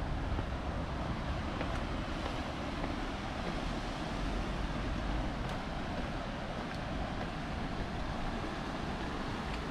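Steady outdoor noise: a low wind rumble on the microphone under an even hiss, with no clear single event.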